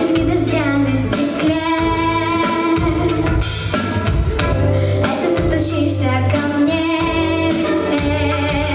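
A young girl singing a pop-style children's song over instrumental accompaniment with a drum beat.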